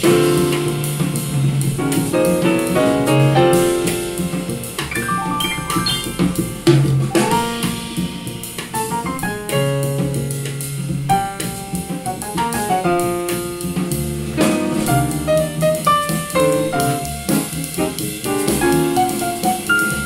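A jazzy song with piano and drum kit, played through a pair of small DIY ceramic speakers, each with a single full-range driver, and picked up in the room.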